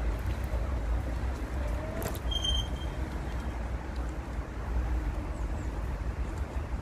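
Wind buffeting the microphone over steady rolling noise while riding an e-bike, with a click and a short high ring about two seconds in.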